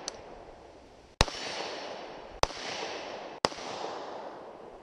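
Glock 43 9mm subcompact pistol firing three shots about a second apart, each crack followed by a long echo rolling back from the surrounding woods.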